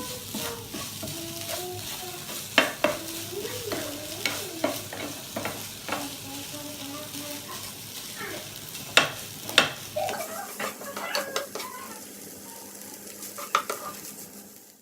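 A spoon stirring spiced minced chicken in a frying pan, with a low sizzle and sharp clicks where the spoon knocks and scrapes the pan, several spread through.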